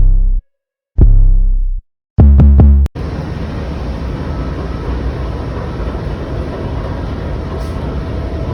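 Hip-hop-style intro music with a deep drum-machine bass, stopping and starting in abrupt chops, cuts off about three seconds in. It gives way to a steady low rumble and hiss of background noise.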